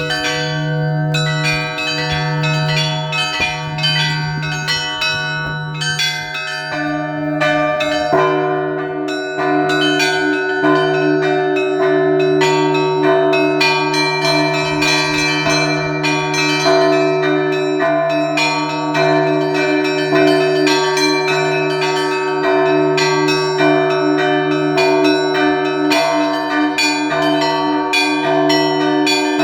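Russian Orthodox church bells in a full peal played by one bell-ringer: a low, heavy bell struck about once a second under continuous quick patterns on the smaller bells. About eight seconds in, the middle bells sound more fully and the peal becomes denser.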